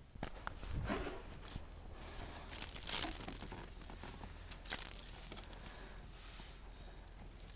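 Rustling, scraping and a few sharp knocks close to the microphone, loudest in two brief bursts around three seconds in and again near five seconds: handling noise.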